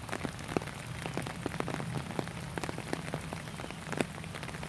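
Rain falling, with many irregular drops ticking sharply close by over a steady hiss.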